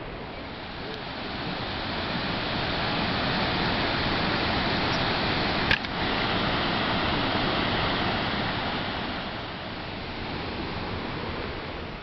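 Steady rush of the Genesee River's Lower Falls and the rapids below it, swelling louder through the middle and easing near the end. A single sharp click a little before halfway.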